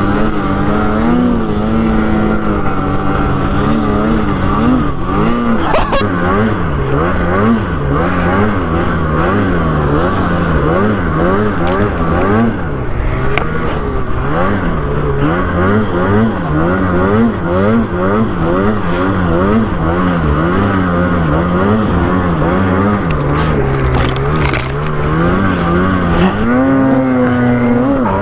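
Snowmobile engine revving up and down over and over while being ridden through deep snow, its pitch rising and falling about once a second, with a longer climb near the end.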